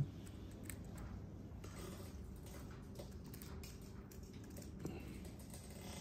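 Quiet room tone with a steady low hum and a few faint clicks and small handling noises, as oil is squeezed from a plastic needle-tip bottle onto the threads of a tap.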